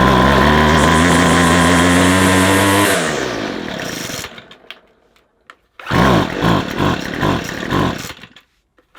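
Two-stroke engine of a McCulloch 250C XL strimmer running steadily, then dropping in pitch and dying out about three seconds in. After a short pause it runs again unevenly, surging in pulses: it is starved of fuel, which the owner puts down to the carburettor diaphragm.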